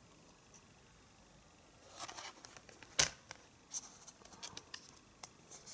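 Handling a plastic Blu-ray case and its discs: a brief rustle, then a sharp click about three seconds in, followed by several lighter clicks and taps.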